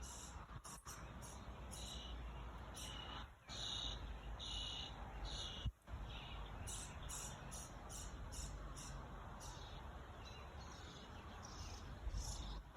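Outdoor ambience: a steady low rumble with repeated short, high chirps of small creatures over it. The sound drops out briefly twice, at about three and a half seconds and again near six seconds.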